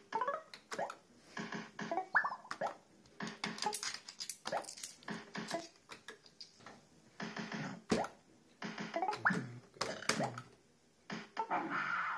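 Barcrest MPU5 'Party Animal' fruit machine in play: short rising electronic bleeps and chirps from its sound effects, over a run of sharp clicks from its buttons being pressed and its reels spinning and stopping.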